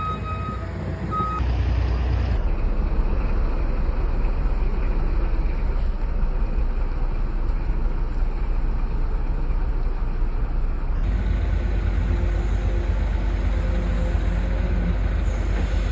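A backup alarm beeping for the first second or so, then a heavy diesel engine running steadily with a deep rumble.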